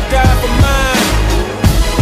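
Hip hop music with a heavy bass beat.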